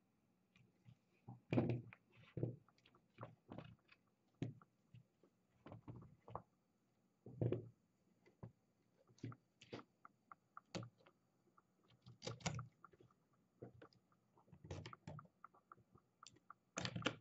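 Irregular plastic clicks and knocks as a hand works a GoPro on a 3D-printed clip mount on a tripod, with a few louder clacks spread through.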